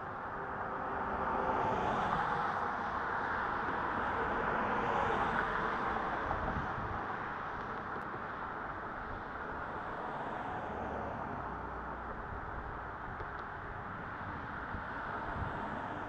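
Road traffic passing: tyre hiss of cars swelling and fading several times in turn over a steady background rush.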